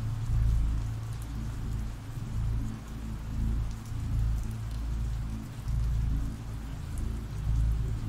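Steady rain sound effect, an even patter of rain, over a low, dark music drone that swells and fades under it.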